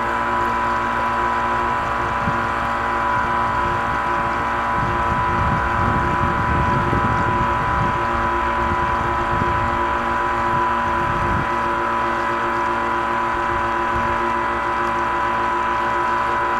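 Pro Boat Alpha Jet RC jet boat's electric motor and jet drive running at a steady high whine, heard from on board. A low rumble of water splashing against the hull swells in the middle and fades near the end.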